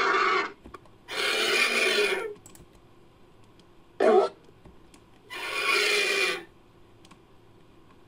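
Designed creature calls for a fictional giant vulture, made from vulture-type sounds. Two harsh, raspy hissing screeches, each about a second long, come about a second in and about five seconds in, with a short lower grunt between them, after a pitched call that trails off at the start.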